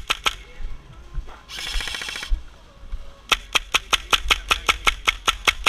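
Airsoft guns firing: a couple of single shots, then a full-auto burst about a second long, then a rapid even string of shots, about six a second.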